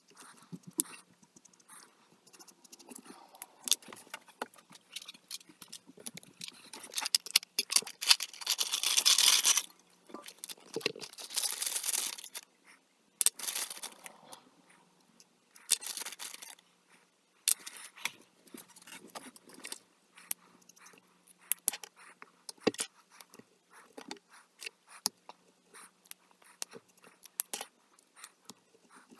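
Copic alcohol markers being handled: rummaging and clicking in a marker case, with two longer stretches of scraping and rattling, then scratchy strokes of a marker tip on paper among many small clicks and taps.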